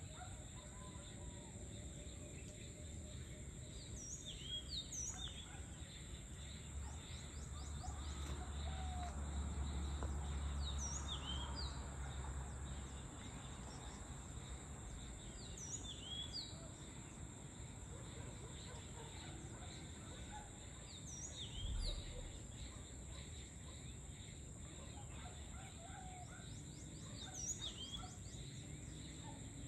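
Evening outdoor ambience: a small bird repeats short, sharp chirps every second or two over a steady high hiss. A low rumble swells for several seconds near the middle, and there is a brief low thump later on.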